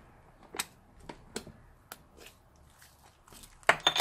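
Sticky, foamy slime being stretched and kneaded by hand, giving scattered sharp wet pops and clicks, with the loudest cluster near the end.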